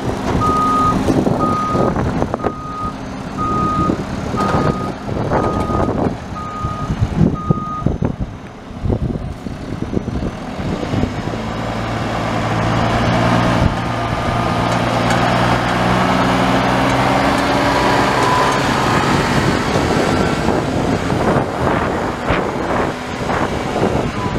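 Front-loader garbage truck's backup alarm beeping evenly, about once every three-quarters of a second, while the truck reverses; the beeping stops about eight seconds in. A few seconds later its diesel engine revs up to a steady, deep drone as the truck drives forward.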